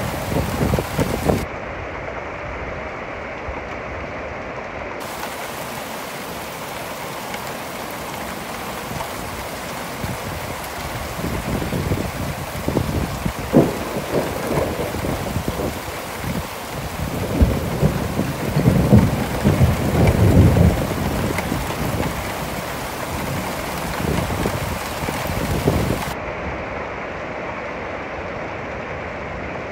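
Monsoon thunderstorm: steady rain hiss throughout, with a long rolling rumble of thunder that builds about a third of the way in, peaks in several deep swells past the middle, and dies away near the end.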